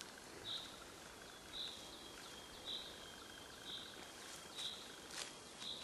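Woodland ambience: a short high animal chirp repeating evenly about once a second over a faint steady high tone, with a faint knock near the end.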